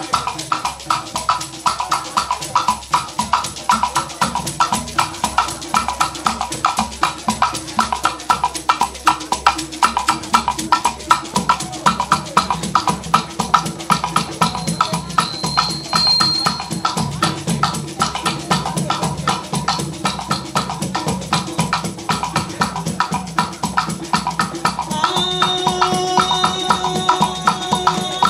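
Hand percussion ensemble of beaded gourd rattles (shekere), a wooden block struck with a stick and a tall drum, playing a fast, steady rhythm. Near the end a held pitched note joins the percussion.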